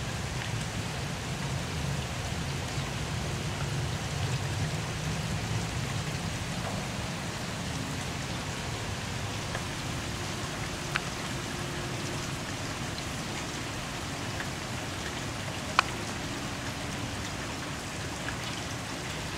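Steady rain falling during a thunderstorm, an even hiss of rain, with two brief sharp ticks, one about halfway through and one near the end.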